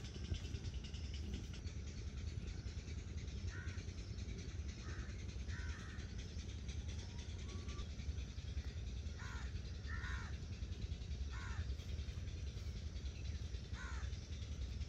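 Crows cawing, several short falling caws scattered a second or two apart, over a steady low rumble.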